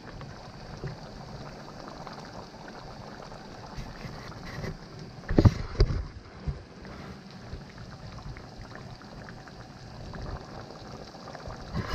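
Chicken curry in coconut milk simmering in a frying pan, a steady low bubbling hiss, with a couple of short knocks about five and a half seconds in.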